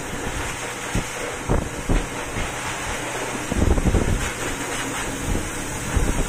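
Handheld pet dryer blowing a steady stream of air, with low gusty rumbles where the airflow buffets the microphone, strongest about three and a half seconds in and again near the end.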